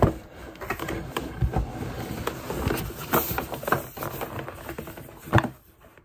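Cardboard microphone box being handled and opened: the inner box sliding out of its printed outer sleeve, with cardboard scraping and rustling and many small taps and knocks. One sharper knock comes about five seconds in.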